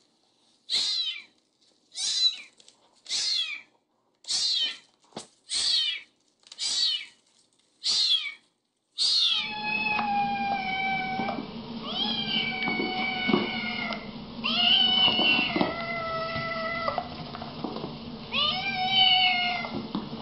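A young tabby kitten mewing in short, high, falling cries about once a second. About nine seconds in, this gives way to Siamese cats meowing in longer, lower, drawn-out calls over a steady background hiss.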